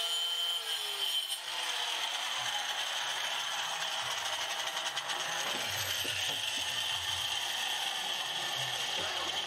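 Hand angle grinder converted into a circular saw, running steadily with a high whine as it finishes a cut through 15 mm plywood and keeps running.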